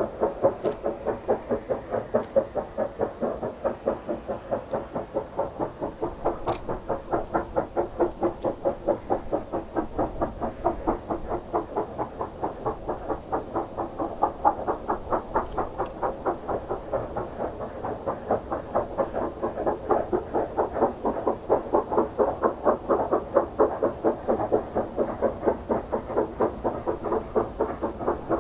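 JS class steam locomotive exhaust chuffing in a steady, even beat of about three chuffs a second, the locomotive working hard with a long train.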